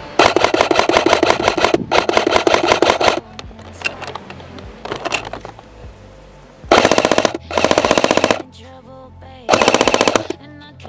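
Airsoft electric rifle firing on full auto: a long burst of about three seconds, then shorter bursts in the second half.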